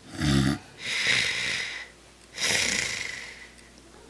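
A man snoring in his sleep: a short, low, rumbling snore, then two long hissing breaths, about a second apart.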